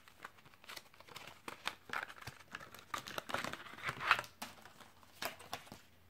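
Laptop drive parts and a thin plastic cover sheet being handled: irregular light crinkling and rustling with scattered small clicks and taps.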